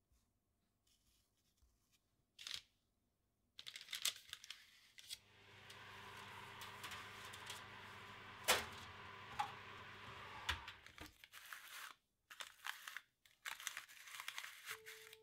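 Kitchen handling sounds: an electric oven hums steadily while its door is open and a baking tray is handled, with a sharp clack about halfway through. Near the end, baking paper crinkles and rustles as baked biscuits are picked up off it.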